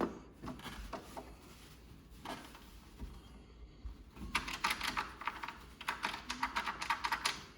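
Newly installed door knob being worked, its latch and mechanism clicking: a few separate clicks, then a rapid run of clicks from a little past halfway until near the end.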